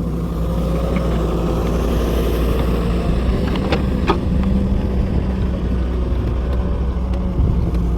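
An engine running steadily with a low, even hum, and a couple of brief clicks about four seconds in.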